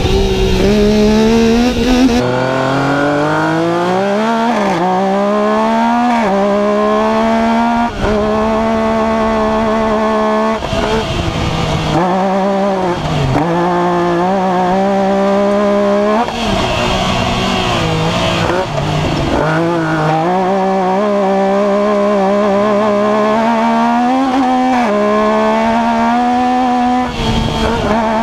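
Yamaha YXZ1000R UTV's three-cylinder engine under race power, heard from inside the cab, its pitch climbing through each gear and dropping back at every shift, again and again.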